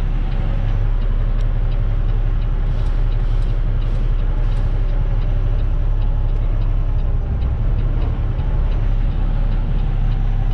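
Semi truck's diesel engine running steadily at low revs while the truck is slowly backed, a constant low rumble with faint regular ticking above it.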